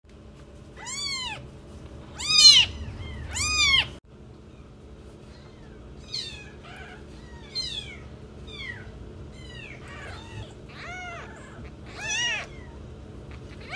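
Neonatal kittens mewing: a run of high, thin, arching cries, three loud ones in the first few seconds, fainter ones through the middle and a loud one near the end. They cry in protest while being held belly-up and wiped with tissue to make them pee and poo.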